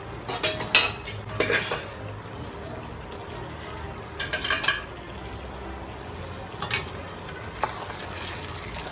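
A spatula stirring and scraping thick chicken stew in a metal pot: a few short bursts of scraping and clinks, with a low steady hum underneath.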